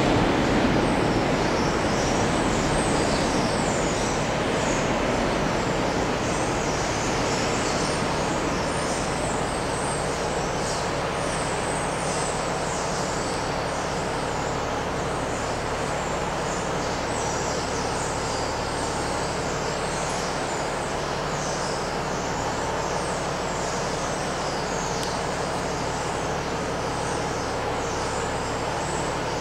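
Freight train box wagons rolling over the rails and pointwork, the rumble slowly fading as the tail of the train draws away. High squeaks come and go, with a steady low hum underneath.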